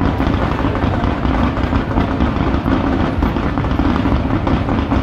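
Fireworks barrage: many comets and shells fired in rapid succession, their shots merging into a dense, unbroken rumble.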